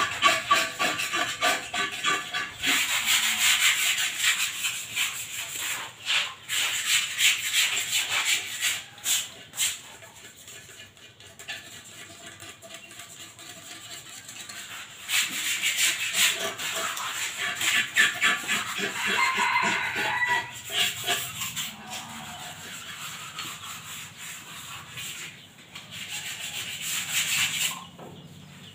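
Hands scrubbing and rubbing the surfaces of cement flower pots: a dense, rasping scrape in two long stretches, with a quieter lull in the middle.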